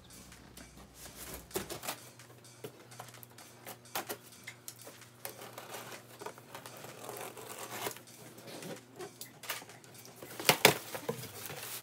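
Scissors slitting packing tape along the seam of a large cardboard box: irregular scratchy clicks and scrapes of the blade on tape and cardboard. A sharper knock comes near the end.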